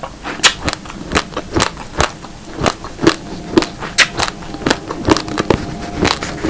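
Raw uncooked rice, black and red grains mixed, cracking between the teeth as it is chewed: a quick run of sharp crunches, about three or four a second.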